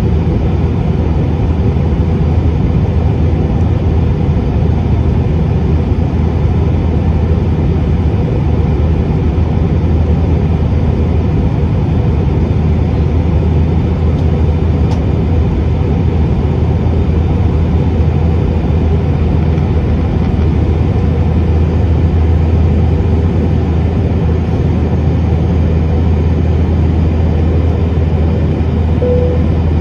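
Steady roar of a jet airliner in flight, heard inside the cabin: engine and airflow noise with a strong low hum. A short tone sounds near the end.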